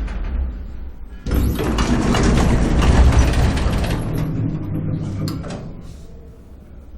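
Electric elevator running with a low hum, then about a second in the elevator doors slide along their track with a loud mechanical rattle that fades over a few seconds, with a couple of clicks near the end.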